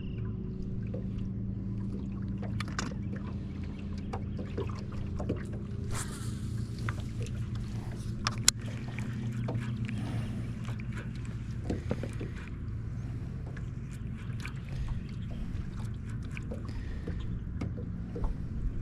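Steady low hum of a boat motor, with scattered small clicks and knocks and one sharp click about eight and a half seconds in.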